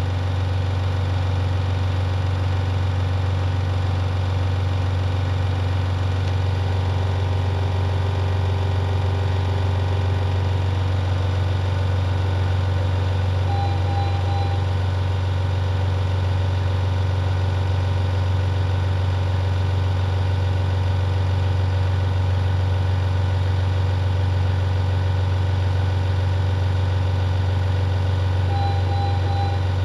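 Steady low hum of neonatal ventilator and monitoring equipment. A short triple beep, typical of a patient-monitor alert, sounds about halfway through and again near the end.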